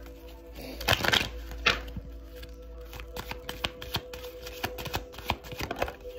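A deck of oracle cards being shuffled by hand: a run of quick flicks and snaps, loudest about a second in, over faint steady background music.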